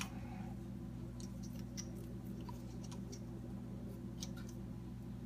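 Faint, scattered small ticks and crinkles of PTFE (Teflon) thread tape being pulled off the roll and wrapped onto the plastic threads of an air admittance valve, over a steady low hum.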